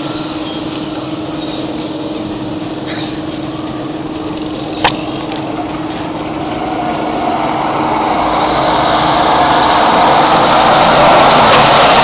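Small go-kart engines running around a track: a steady drone while the karts are far off, growing louder from about seven seconds in as karts come near and pass. A single sharp click a little before halfway.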